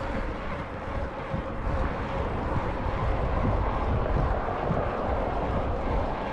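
Wind buffeting an action-camera microphone on a moving bicycle, with a low, uneven rumble of tyres on pavement and a faint steady hum underneath.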